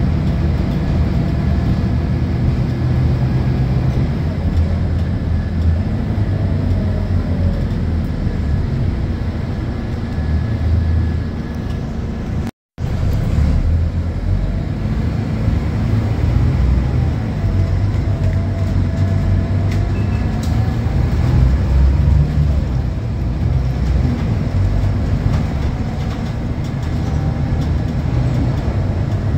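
Scania K230UB bus heard from inside the passenger saloon while under way: the rear-mounted diesel engine rumbling, with the ZF Ecomat automatic gearbox's whine rising and falling as the bus pulls away and changes gear. The sound cuts out for a moment about halfway through.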